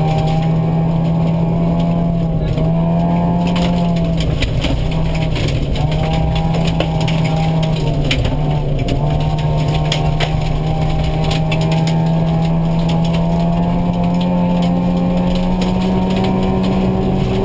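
Opel Astra GSi rally car's four-cylinder engine running hard at high revs, heard from inside the cabin, its note held steady with a few brief dips and creeping higher near the end. Gravel ticks and clatters against the car throughout.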